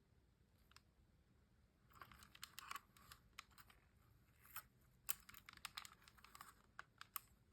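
Faint, irregular little plastic clicks and rustles from a DJI Mini 3 Pro drone being handled, its newly replaced arm hinge worked by hand to test that it holds firm. The clicks begin about two seconds in and come several times a second.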